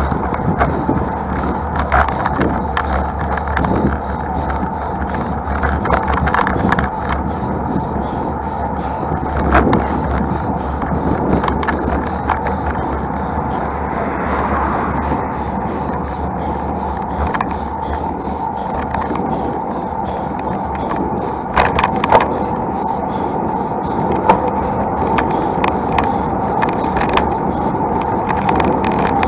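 Road bike riding noise on a hill climb: a steady rumble and hiss with frequent small clicks and rattles.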